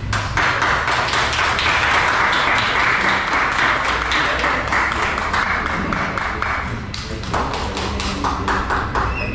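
A small group of people clapping, a fast, dense patter of hand claps that runs about seven seconds, breaks off briefly, then picks up again for a shorter round.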